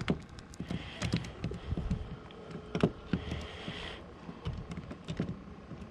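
Irregular light taps and low thuds on a fiberglass boat deck, from a small sheepshead flopping about after being landed.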